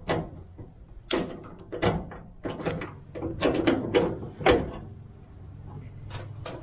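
A run of sharp metallic clicks and knocks: a flathead screwdriver prying at the spring retaining clip on a gas hood strut's socket end while the strut end is worked by hand toward its ball-stud mount.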